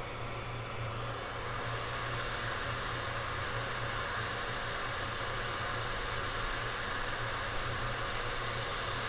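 Steady rushing hiss of a hot-air rework station blowing over the board. It gets louder about a second and a half in, over a steady low hum.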